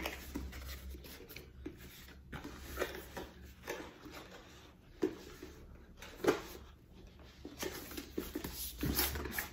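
Scattered rustling and soft knocks of a small boxed item and its packaging being handled and taken out, with a few sharper taps.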